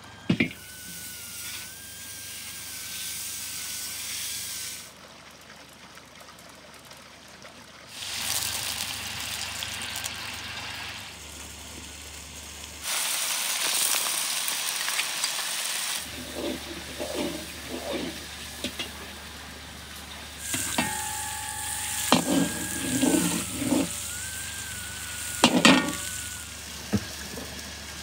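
Butter and minced garlic sizzling in a hot kazan, with a wooden spoon stirring and knocking against the pot. The sizzle comes in separate stretches that stop and start abruptly, and the knocks are clustered in the second half.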